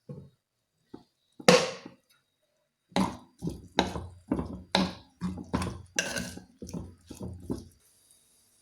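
Spatula stirring and scraping squid around a pan (chatti) while it is sautéed in coconut oil: one louder scrape about one and a half seconds in, then a run of strokes about two a second that stops shortly before the end.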